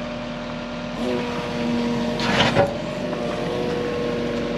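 Yanmar ViO55 mini excavator's diesel engine running steadily, getting a little louder about a second in, with a short burst of hiss-like noise a little past the middle.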